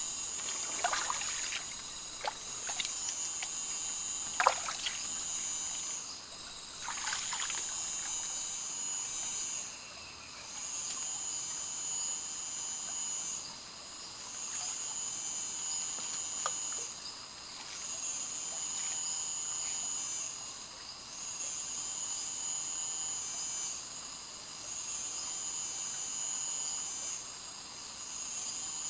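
Rainforest insects calling in a steady high drone, one of them pulsing on and off about every two seconds, over the trickle of a shallow creek. A few splashes from someone wading, mostly in the first eight seconds and once more about halfway through.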